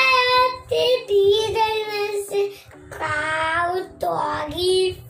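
A child singing a melody in long held notes, in a few phrases with short breaks, the longest about two and a half seconds in.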